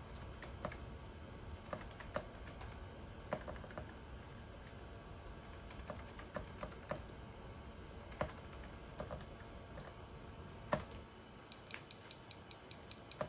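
Computer keyboard typing: scattered keystrokes as DOS commands are entered, then a quick run of about ten evenly spaced key presses near the end.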